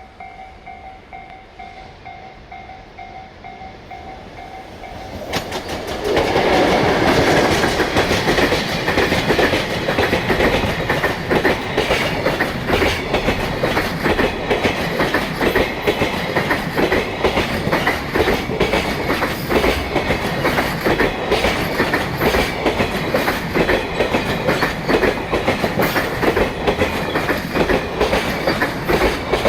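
Level-crossing alarm ringing in an even, repeating pulse. About five seconds in, a JR Freight EF66 electric locomotive hauling Koki container wagons arrives over the crossing, and the loud clickety-clack of the wagons' wheels over the rail joints carries on.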